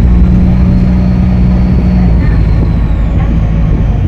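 Optare Solo SR bus engine running with a steady low drone and a faint, high turbocharger whistle above it. About two seconds in the engine note changes, and the whistle fades away about three seconds in.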